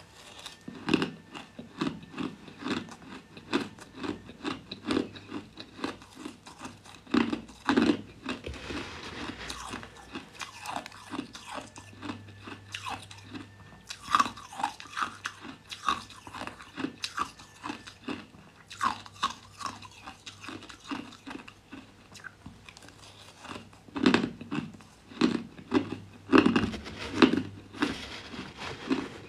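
Crushed ice being bitten and chewed: a continuous run of sharp, crisp crunches, about two a second, coming thicker in places.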